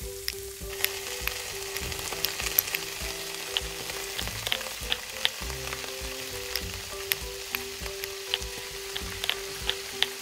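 Diced chicken frying in a miniature wok: a steady sizzle with scattered sharp crackling pops as red sauce cooks in and is stirred with a tiny spoon. Quiet background music runs underneath.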